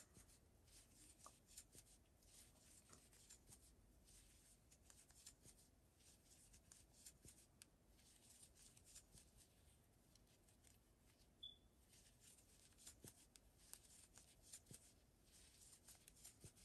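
Near silence with faint rustling and small ticks of yarn being worked with a crochet hook, stitch after stitch. One short, high chirp about two-thirds of the way through.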